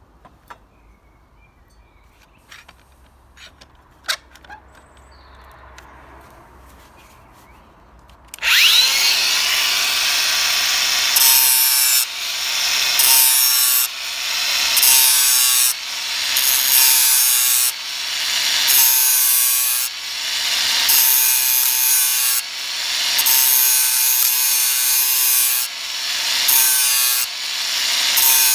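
A few faint clicks and knocks. Then, about eight and a half seconds in, a Bosch angle grinder spins up with a rising whine and grinds the bevelled cutting edge of a Flymo rotary mower blade to sharpen it. Its sound swells and dips in repeated passes about every two seconds.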